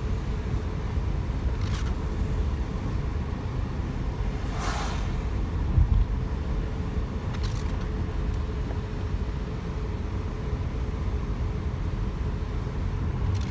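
Steady road and engine rumble inside a moving car, with a faint steady hum. A few brief whooshes pass over it, and there is a bump about six seconds in.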